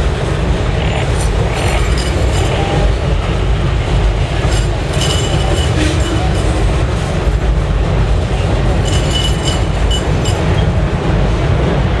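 Freight train tank cars rolling across a steel girder bridge: a steady heavy rumble with scattered wheel clicks. Short high wheel squeals come about five seconds in and again around nine seconds.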